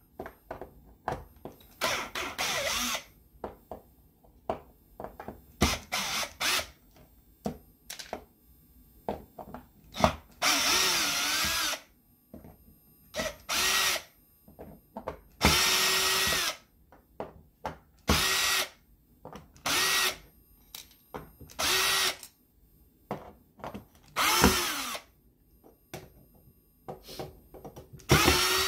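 Black+Decker cordless drill/driver unscrewing hold-down screws from an aluminium plate. The motor whines in about ten short bursts, with small clicks and taps between them.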